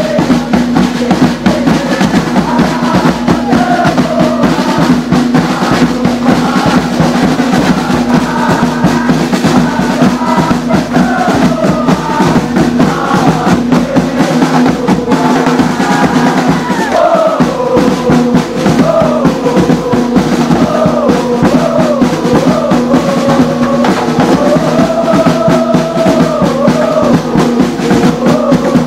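Loud supporters' drum section beating snare drums in a fast, steady rhythm, with a crowd of football fans chanting along; the chant stands out more from about halfway through.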